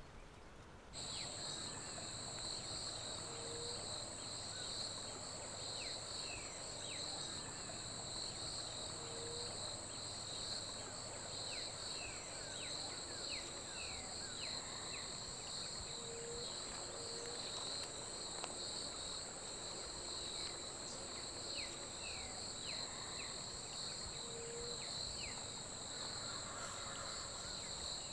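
Steady chorus of insects, a continuous high-pitched trill that cuts in abruptly about a second in, with scattered short falling chirps above it.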